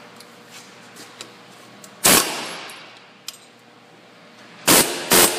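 Husky pneumatic air hammer firing short bursts of steel-on-steel clanging against the end of the rear half shaft, driving it free of the wheel hub. One burst comes about two seconds in and rings off; two quick bursts follow near the end.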